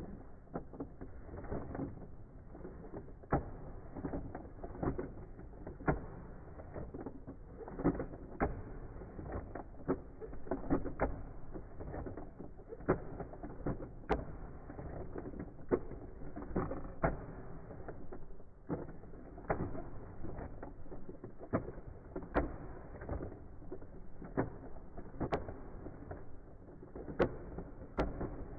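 Irregular clicks and knocks of plastic toy figures being handled and repositioned, coming a few to several a second over a steady low hiss.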